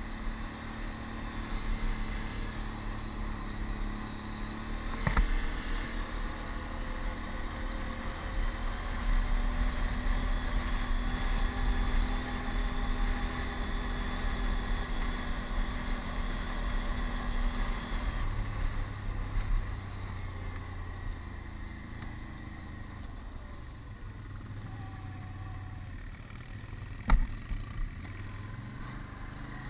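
Can-Am Outlander ATV engine running as it rides along a gravel woods road; the engine note holds steady, then drops lower about two-thirds of the way through. A single sharp knock comes near the end.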